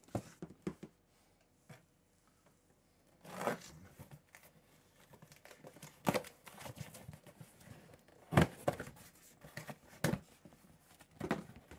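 Cardboard boxes scraping and rubbing against each other as a long box is pulled up out of a cardboard shipping carton, with scattered knocks; the sharpest comes a little past eight seconds in, with another about ten seconds in.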